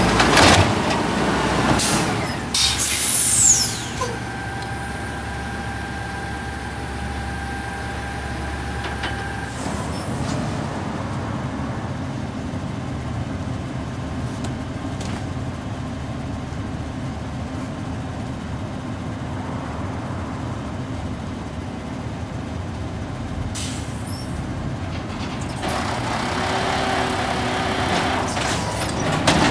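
Automated side-loader garbage trucks at work: clattering and a falling hiss of air in the first few seconds as a cart is dumped into the hopper, then the engine running steadily with a whine for several seconds. Near the end the engine and the hydraulic lifting arm get louder as the arm raises a cardboard box.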